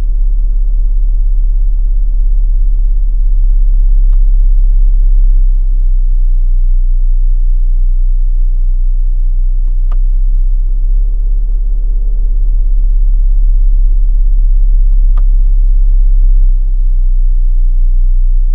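Deep, steady booming rumble in the cabin of a 2026 Chrysler Grand Caravan, its 3.6-litre V6 idling while the van is stopped, pitched very low at around 32 Hz. The boom is the engine NVH fault the owner considers a defect needing warranty repair.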